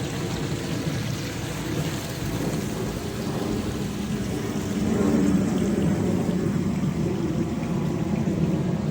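Water spilling down a built garden waterfall: a steady rushing splash, a little louder about five seconds in.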